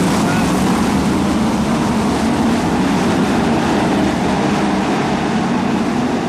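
Several BriscaF1 stock cars' V8 engines running at racing speed together, a loud, steady drone of engines passing around the track.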